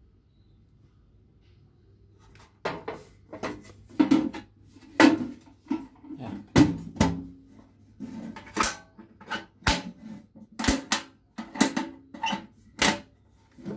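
Sheet-metal toolbox being handled: the lid is shut and the metal latch and carry handle are worked, giving a run of uneven clanks and clicks with brief metallic ringing, starting about two and a half seconds in.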